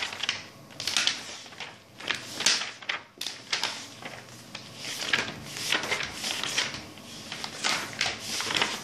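Book pages being leafed through: a run of short paper rustles.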